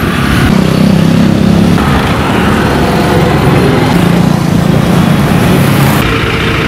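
Motorcycle engines running as the bikes pass close by, over loud road-traffic noise. An engine hum comes through strongest about half a second in, and again around four seconds in.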